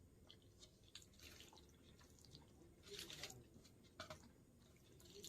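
Faint wet chewing and mouth clicks of a person eating, scattered short smacks with a slightly louder cluster about three seconds in and another at four.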